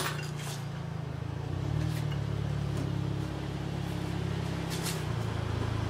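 Car engine idling steadily, a low even hum that shifts slightly in pitch a couple of times, with a few light clicks over it.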